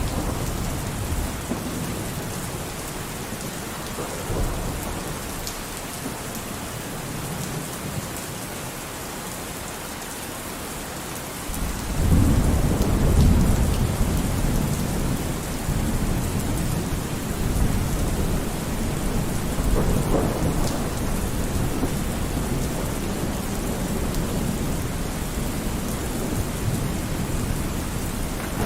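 Steady rain falling, with thunder rolling in the low end. A louder, long rumble of thunder starts suddenly about twelve seconds in and keeps going.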